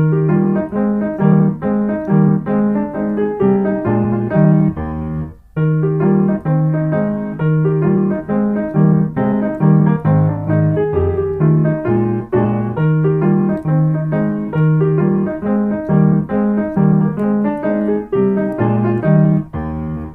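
Background music: a piano or keyboard tune of quick, evenly paced notes over a repeating bass line, with a brief pause about five seconds in.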